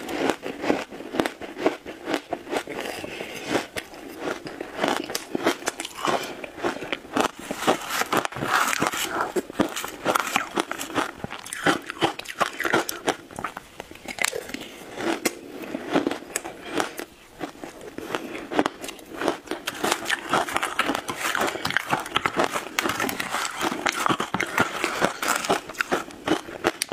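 Close-up crunching and chewing of mouthfuls of shaved ice topped with passion fruit, a dense run of crisp crackles and crunches with a short lull about two-thirds of the way through.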